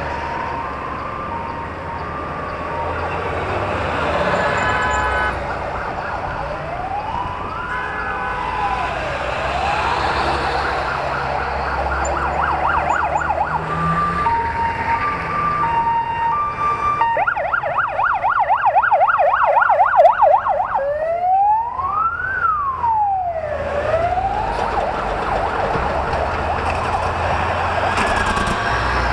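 Sirens cycling through slow up-and-down wails, fast yelps and a steady two-tone hi-lo, loudest in a fast yelp a little past the middle. Under them is the low rumble of military convoy vehicles passing close by, among them a Humvee and a heavy truck tractor.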